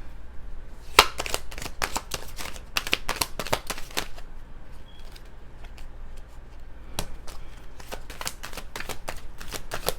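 Tarot cards being shuffled: a run of sharp card clicks and slaps, with one loud snap about a second in. The clicks come in dense clusters, thinning out in the middle.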